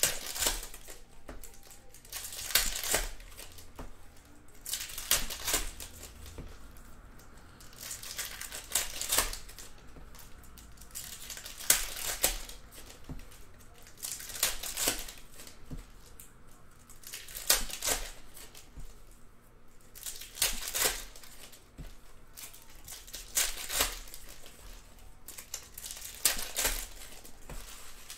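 Trading-card pack wrappers crinkling and tearing in short bursts about every three seconds, as packs are ripped open one after another.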